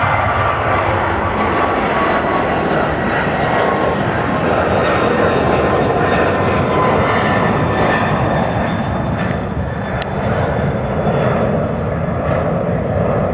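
Airbus A300-600's twin turbofan engines at take-off thrust: a steady, loud jet roar with a fan whine that slowly drops in pitch as the airliner climbs away.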